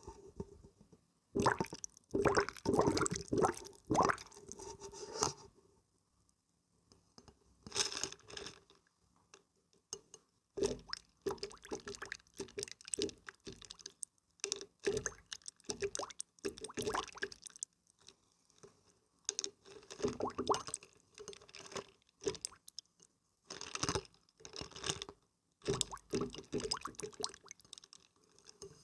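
Water being played with by hand: irregular bursts of splashing, squishing and dripping, each a second or two long, with short quiet pauses between.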